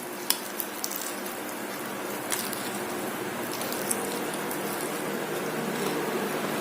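Steady room hiss and low hum, slowly growing a little louder, with a few soft clicks of chewing food.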